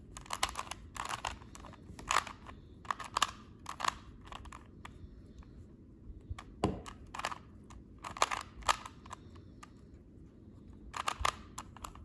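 Plastic 3x3 Rubik's Cube being turned by hand: quick clusters of clicks and rattles as the layers snap round, with short pauses between groups of turns.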